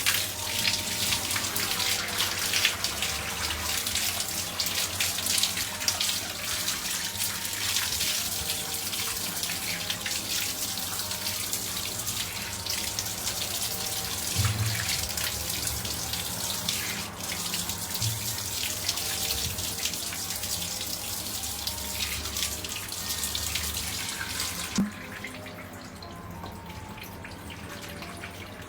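Water running from a tap or shower spray while a dog is bathed, a steady hiss that cuts off suddenly near the end.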